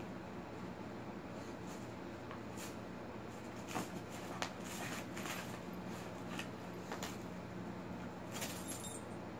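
A dog rummaging with its head and paws in a pile of clothes: scattered fabric rustles and light clicks, most of them in the second half, over a steady low hum.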